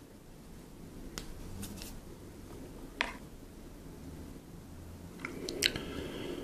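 A few sharp clicks and taps of small tools and parts being handled during a camera lens repair. The loudest is about three seconds in, and a quick cluster of clicks near the end is followed by a brief ringing.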